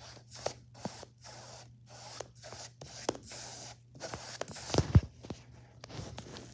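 Paintbrush scrubbing paint onto a small canvas in short repeated strokes, a few each second, with a louder knock about five seconds in.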